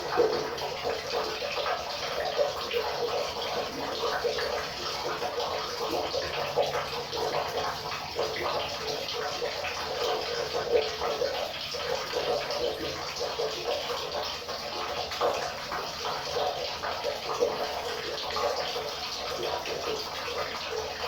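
River water running steadily, a continuous rushing with fine gurgling flicker.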